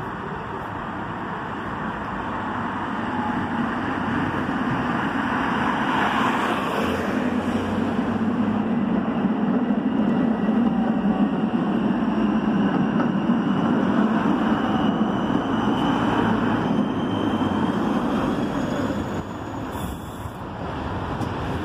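Konstal 105NWrMp tram, rebuilt by Protram with Protram traction motors, approaching on the rails and pulling up at the stop, its running noise swelling as it nears, with a faint high whine rising slowly in pitch. Car traffic runs on the road alongside.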